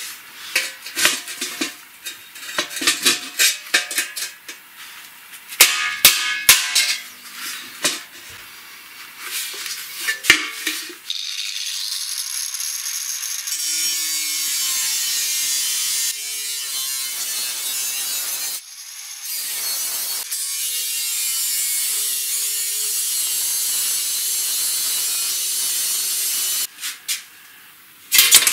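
Sharp metal knocks and clanks on a galvanized steel bucket for about the first ten seconds, then an angle grinder's cutting disc cutting through the bucket's side for about fifteen seconds, with two short breaks. A few more loud knocks come near the end.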